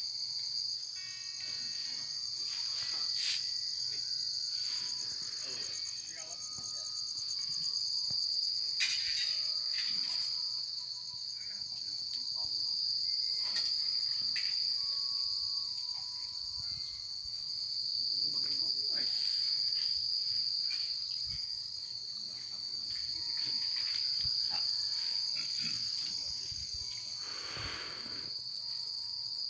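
Night chorus of crickets trilling steadily in one high, even tone, with a few faint clicks.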